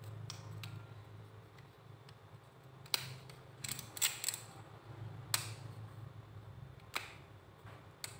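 Stubby ratcheting screwdriver turned by hand, its ratchet giving scattered sharp clicks, with a short run of clicks about four seconds in.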